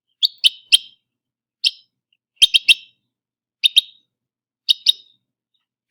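Sanderling giving sharp "kip" calls, played from a recording: short high notes, some single and some in quick runs of two or three, repeated every second or so.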